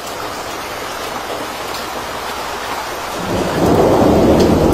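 Floodwater rushing in a torrent down a street, with rain: a steady noise of churning water that turns louder and deeper about three seconds in.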